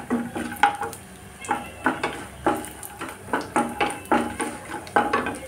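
Wooden spatula stirring makhana (fox nuts) and dry fruits in ghee in a kadhai, scraping and knocking against the pan in short strokes about twice a second.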